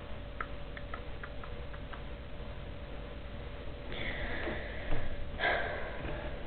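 A steady electrical hum from the recording setup with a few faint clicks, then two breathy noises close to the microphone, about four and five and a half seconds in, from the person at the computer breathing out or sniffing.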